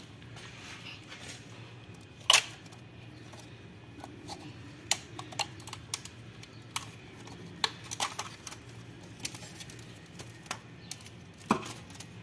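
Scattered sharp clicks and taps, one loud one about two seconds in and a run of smaller ones later, over a faint low steady hum.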